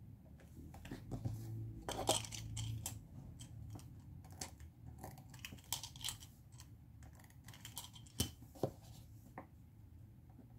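Paper worksheet rustling as it is handled and shifted on a desk, with several small clicks and taps from pens being swapped and set down. The loudest, densest rustling comes about two seconds in.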